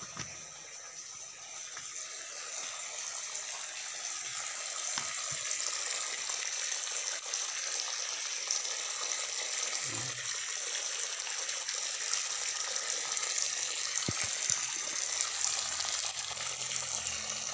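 Water running steadily, a constant hiss that grows a little louder over the first few seconds.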